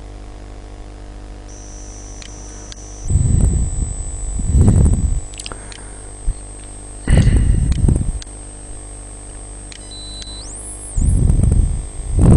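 Steady electrical hum and hiss from a recording microphone, with about five louder bursts of low rumble, each lasting about a second.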